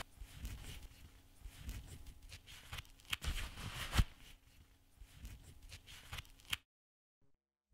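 Black leather gloves being pulled on and tugged into place: soft rustling and creaking handling noise with a few sharp clicks. It stops abruptly about a second before the end.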